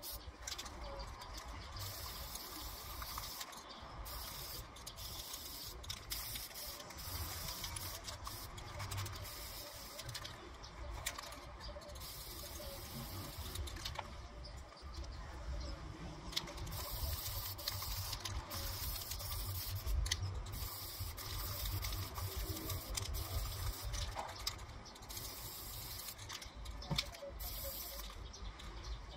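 Aerosol can of black spray paint hissing in repeated bursts with short pauses, as a metal furniture frame is coated.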